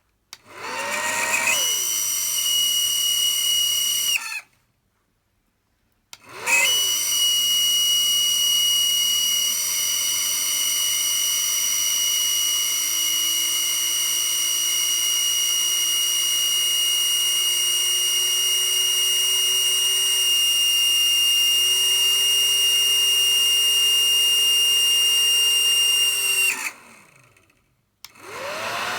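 Hair dryer running with a high-pitched screaming whine over its fan noise, which happens when the dryer is cold and which the uploader puts down to a bad bearing. It runs for about four seconds and is switched off, then starts again about six seconds in and runs for about twenty seconds, its lower motor tone slowly creeping up in pitch, before it is switched off and winds down; it starts once more at the very end.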